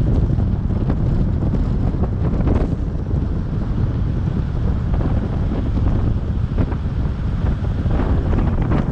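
Wind buffeting the microphone over the steady low rumble of a moving car.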